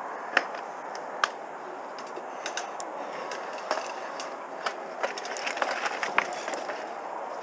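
Mountain bike rolling over rough limestone rock: a steady rush of tyres and air, broken by sharp clicks and knocks as the bike jolts over bumps. The clicks come only now and then at first and turn into a busy clatter in the last couple of seconds.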